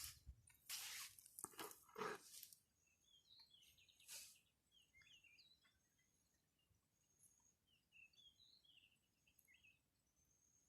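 Quiet, short, high bird chirps repeated in scattered runs, with brief rustling noises in the first two seconds or so and again about four seconds in.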